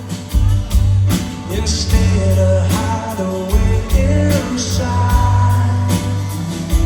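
Rock band playing a song with a lead singer over heavy bass and drums.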